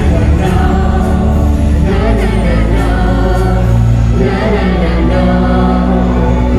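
A live pop song performance: singing over a full band, with strong sustained bass notes underneath.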